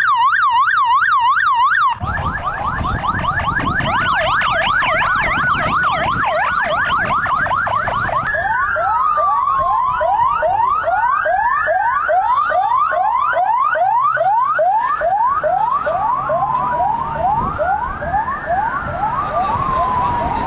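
Police escort sirens. First a fast warbling yelp, which changes abruptly about two seconds in to quick rising sweeps repeating several times a second. From about eight seconds in, a slow rising-and-falling wail sounds together with a second siren's quick sweeps, over a low rumble of vehicles.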